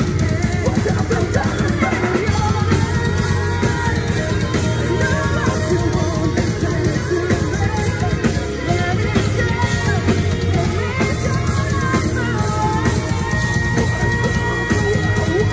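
A rock band playing live at full volume: distorted electric guitar and a drum kit under two vocalists singing into microphones.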